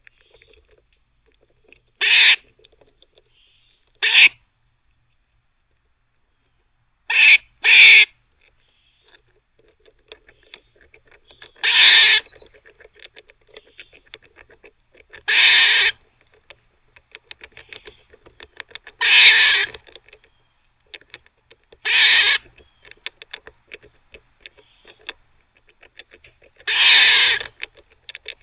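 Eastern gray squirrel barking: about nine loud calls a few seconds apart, two of them in quick succession, the later ones longer. Between the barks from about ten seconds in come faint rapid clicks of its teeth gnawing.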